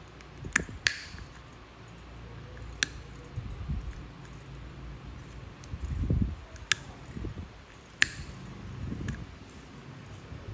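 Steel nail nippers snipping through a thick, crumbly fungal toenail: about five sharp clicks spread out, with soft low handling noise between.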